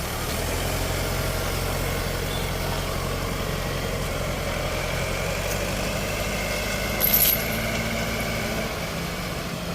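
Diesel engine of farm machinery running steadily, with one brief sharp high-pitched noise about seven seconds in.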